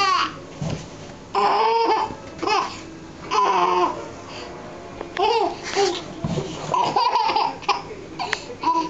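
Baby laughing in a string of short, high-pitched bursts, with some babbling between them.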